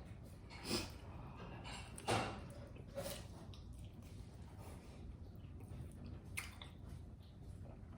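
Close-up wet eating sounds: a few scattered smacks and squishes of chewing seafood coated in butter sauce, the loudest about two seconds in.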